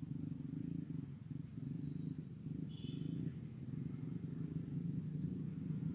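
A low, steady, pulsing hum like a small motor running, with a faint brief high-pitched tone near the middle.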